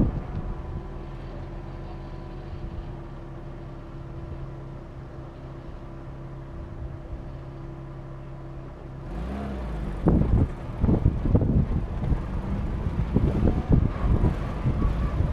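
A vehicle's engine drones steadily while driving. About nine seconds in, the sound gets louder and rougher, with repeated knocks and jolts of the vehicle over uneven ground.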